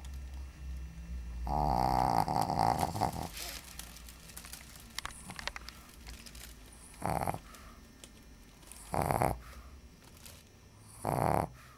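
Shih Tzu snoring in its sleep: one long snore about two seconds in, then three short snores about two seconds apart.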